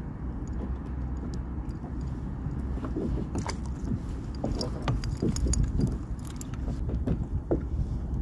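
Small, scattered clicks and knocks of a fishing rod and spinning reel being handled, over a steady low rumble.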